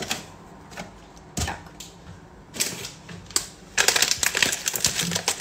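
A plastic bag of oat flakes crinkling loudly as it is handled, starting about four seconds in. Before that, a few light knocks and handling sounds.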